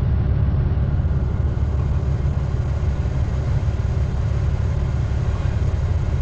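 Diesel engine of a Tigercat log loader idling steadily, a constant low drone heard from inside the machine's cab.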